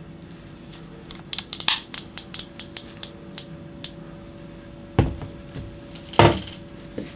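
A quick run of about a dozen sharp metallic clicks as a Shimano Speedmaster two-speed lever-drag reel is worked by hand, then a dull thump and a louder knock as the rod and reel are handled on the table.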